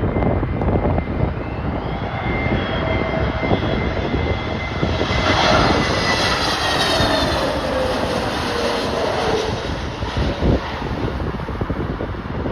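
Jet airliner passing close by as it comes in to land, its engine whine peaking about halfway through and then falling in pitch as it goes past. Gusty wind buffets the microphone.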